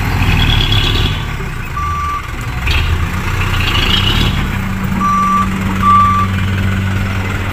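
Hino Dutro dump truck's engine running steadily as the truck tips its raised bed to dump a load of soil. Three short beeps of a reversing alarm sound, about two seconds in and twice near the end.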